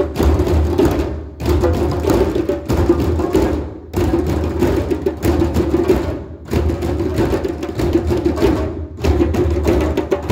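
A group of djembes played together by hand in a drum circle: a dense, steady beat of many drums, with brief dips in the playing about every two and a half seconds.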